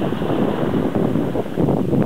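Wind buffeting the camera microphone with a steady fluttering rumble, over small waves washing onto a pebble-and-shell shore.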